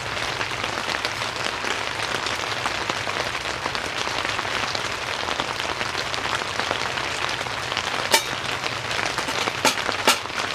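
Steady rain falling on a tent roof. Near the end come three sharp clicks, the last two close together.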